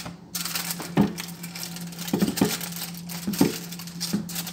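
Aluminium foil crinkling and rustling as it is rolled up by hand around a meat filling, with a few soft knocks against a wooden board.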